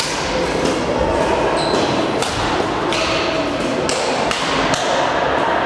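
Badminton rackets hitting shuttlecocks: sharp, irregular pops from several courts at once, echoing in a large sports hall, over a low murmur of voices.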